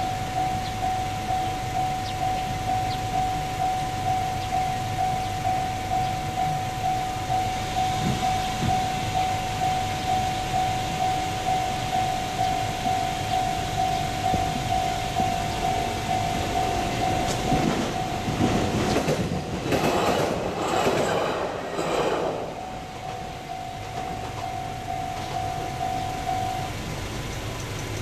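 Railway level-crossing alarm ringing its steady, evenly repeated bell tone, while a train on the JR Tohoku Main Line passes about two-thirds of the way through with the clickety-clack of wheels over the rail joints. The crossing bell stops shortly before the end.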